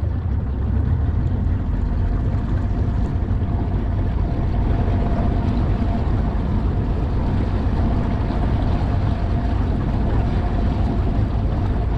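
Boat under way, its motor running steadily with a constant low rumble, a faint steady whine and the rush of water and wind.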